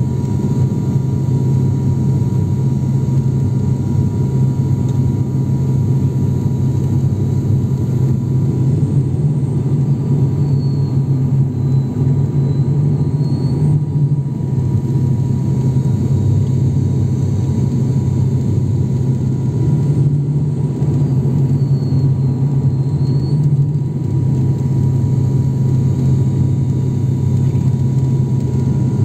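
Cabin noise of an ATR 72-600 turboprop on approach. The Pratt & Whitney PW127M engine and its six-bladed propeller outside the window make a loud, steady low drone, with a faint steady whine above it. The drone swells a little twice in the middle.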